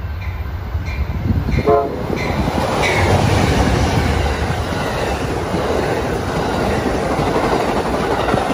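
Amtrak Southwest Chief passenger train arriving: a brief horn blast just under two seconds in, then a loud rush and clatter as its double-deck Superliner cars pass close at speed. Under it a freight train runs on the next track, with a faint regular ticking about twice a second early on.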